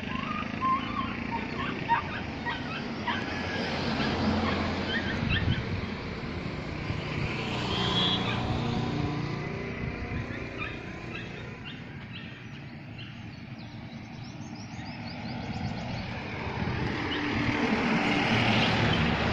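Outdoor street ambience: a steady background of traffic noise that swells twice, about eight seconds in and near the end, as if vehicles pass, with birds chirping over it.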